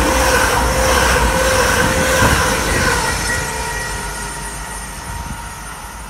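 Class 222 Meridian diesel-electric multiple unit running through the station: a heavy rumble with steady whining tones on top, fading from about halfway through as it moves away.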